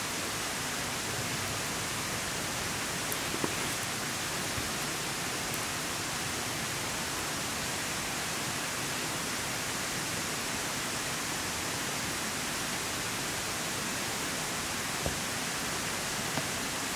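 Steady, even rushing noise, with a few faint clicks about three and a half seconds in and near the end.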